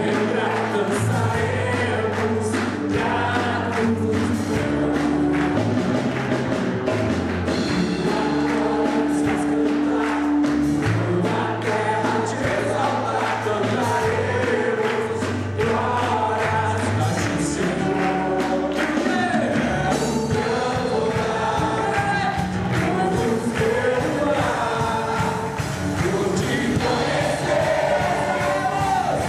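Music: a group of voices singing a gospel-style worship song over band accompaniment, with held bass notes and a steady percussive beat.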